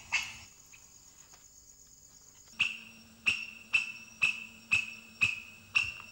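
Fork-marked lemur territorial calls: a series of sharp, short calls repeated about twice a second. They break off just after the start and resume after about two and a half seconds of quiet.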